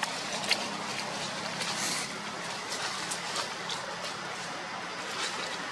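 Steady background rumble of road traffic with a faint low hum, broken by a few short faint clicks.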